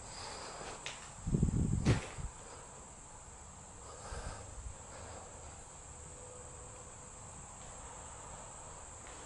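Insects chirring steadily at a high pitch, with a short run of low thumps about a second and a half in.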